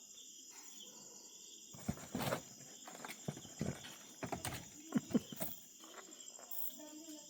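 Kittens scrambling and bumping against cardboard boxes: a flurry of thumps and scratchy scuffles from about two seconds in until about five and a half seconds in, over the steady chirping of crickets.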